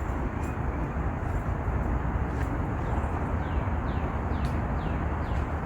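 Steady low outdoor rumble with a bird calling over it: a run of quick chirps, each sliding down in pitch, about three and a half seconds in.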